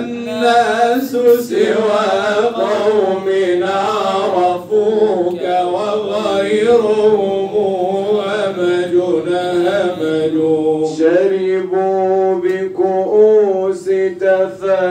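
Male voice singing a Sufi inshad unaccompanied, drawing out long ornamented melismatic lines with no clear words.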